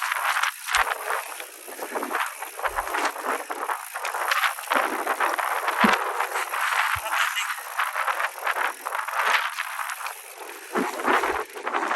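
Mountain bike rolling over a rough, rocky and muddy trail: continuous tyre and rattle noise with scattered knocks, and the rider's heavy breathing swelling and fading every second or two.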